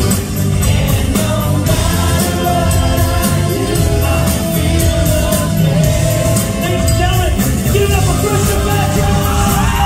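Live band with drums, electric guitars and a horn section of trumpet, trombone and saxophone playing a pop song with a steady beat, a male lead singer singing over it. Loud throughout.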